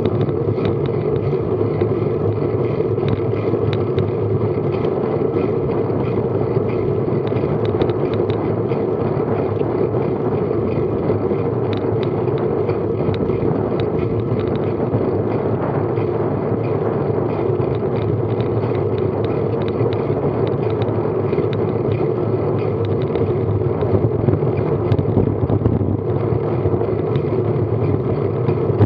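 Steady wind rush and tyre noise on a bike-mounted action camera's microphone while cycling along a tarmac road at about 15 mph, with faint scattered ticks.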